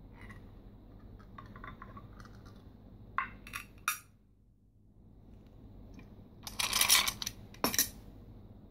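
Glassware clinking on a tabletop: three sharp clinks about three seconds in, then a louder rattle of ice cubes in a glass as the glass is moved, about seven seconds in, and one last clink.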